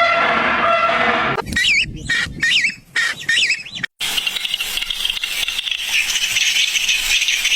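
Bird calls: a few quick phrases that sweep up and down in pitch. After a brief break, a dense, steady high chirring follows.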